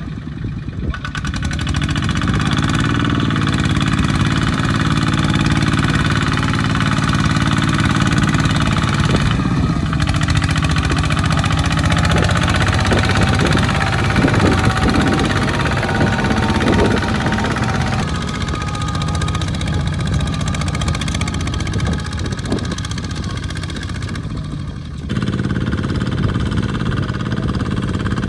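Single-cylinder diesel engines of Kubota-type two-wheel walking tractors running steadily under load as they pull trailers of rice sacks through mud. The engine sound changes abruptly three or four times.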